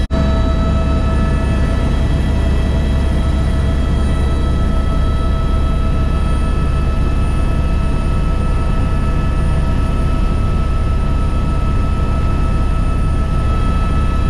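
Helicopter cabin noise in steady flight, heard from inside the cabin: a constant deep rotor and engine rumble with a steady turbine whine of several high tones on top.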